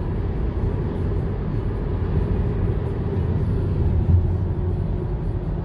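Steady low rumble of road and engine noise inside a car's cabin while it drives at highway speed.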